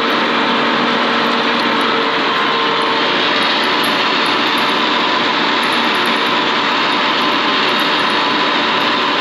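Lucas horizontal boring mill drilling through 4-inch-thick steel plate under hand feed: a loud, steady, even rush of machine and cutting noise with a faint steady hum in it.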